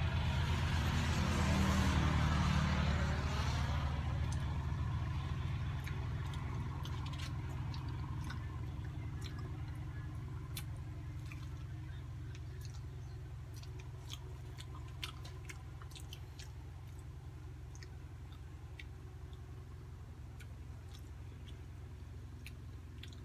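A motor vehicle passes close by in the first few seconds, and its low engine rumble then fades slowly away. Over it are scattered small clicks and smacks of people chewing and eating durian.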